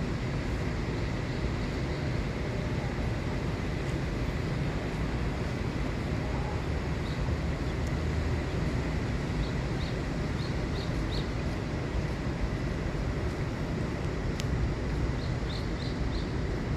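Steady low rumbling outdoor noise, with faint short high chirps in runs of three or four, several times over.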